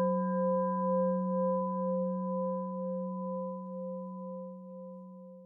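A struck meditation bell ringing out with a low, wavering hum that slowly fades away.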